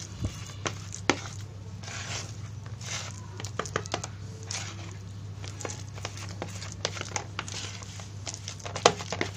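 A white plastic spatula stirring and scraping a moist, doughy fish-bait mix around a plastic bowl: irregular scrapes with a few sharp clicks, the loudest near the end.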